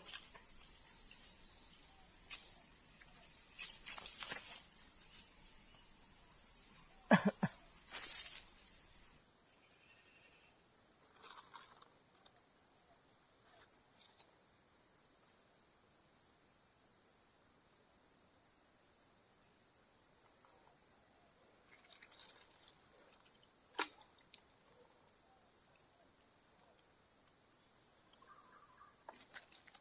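A steady high-pitched insect chorus, shrill chirring that gets clearly louder about nine seconds in. A few sharp knocks stand out, the loudest a double knock about seven seconds in.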